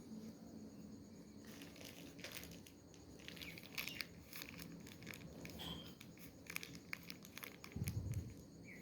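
Bedding rustling and crinkling in irregular bursts as a sleeper tosses and turns, then a low thump near the end.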